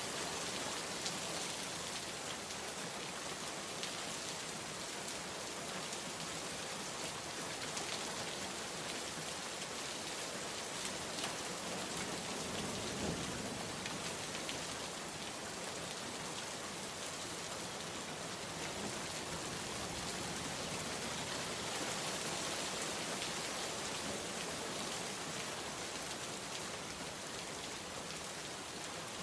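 Steady rainfall, an even hiss of many drops on a surface with scattered individual drop ticks.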